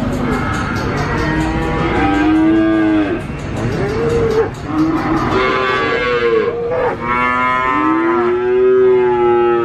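Cattle mooing: long drawn-out moos one after another, some overlapping at different pitches, as more than one animal calls.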